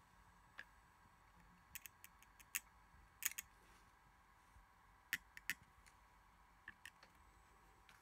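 Small sharp clicks and taps of a hand tool against the opened Samsung Galaxy Tab 10.1's circuit board, connectors and metal frame as ribbon-cable connectors are pried loose, scattered in small clusters and loudest a little over three seconds in. Between them it is near silence.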